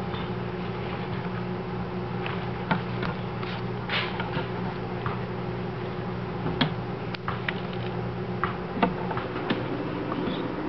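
Scattered small clicks and rustles of dry seed mix and wood-shaving bedding being handled in a gerbil cage, over a steady low hum.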